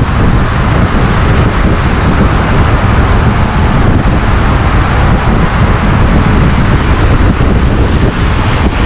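Loud, steady wind rush buffeting the microphone of a camera riding on an electric scooter at highway speed, heaviest in the low rumble.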